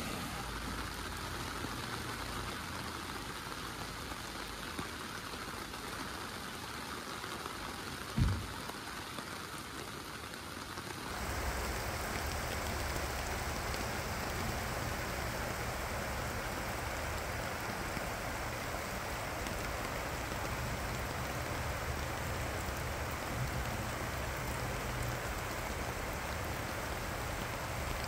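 Heavy rain falling steadily. About eleven seconds in the sound cuts to a louder, steady rush of water with a low rumble. There is a single short thump about eight seconds in.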